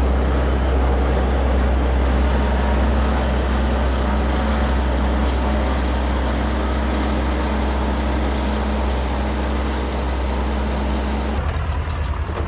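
Large farm machine's heavy engine running steadily at close range, a deep low hum with a noisy mechanical rush above it; the sound changes abruptly near the end.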